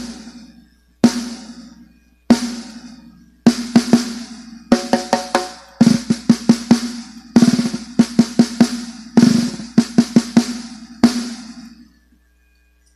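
Snare drum fitted with an LDH Luen One Custom CT 14-inch red head, struck with a drumstick. First come single strokes about a second apart, then short, rapid groups of strokes, and each hit rings on with a steady tone.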